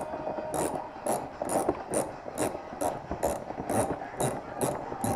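Hand ratchet wrench worked back and forth on the bike's bolts, a short burst of pawl clicks on each back-swing, about two a second.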